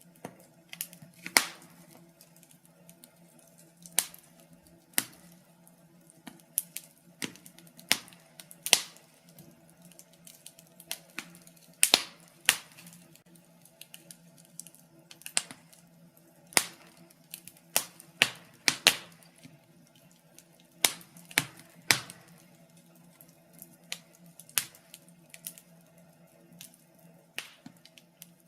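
Wood fire crackling in a fireplace: irregular sharp pops and snaps, some in quick clusters, over a faint steady low hum.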